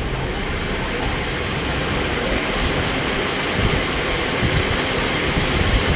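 Fast-flowing floodwater rushing down a street in a steady, unbroken noise of water.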